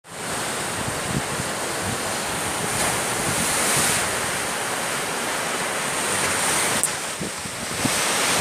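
Sea surf washing against the shore in a steady rush that swells briefly about three seconds in, with wind buffeting the microphone.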